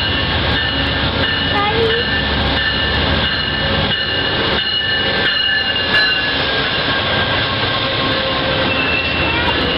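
Amtrak diesel-hauled passenger train passing close alongside a station platform: loud steady rumble of the locomotive and rolling wheels, with a thin high squeal held over it.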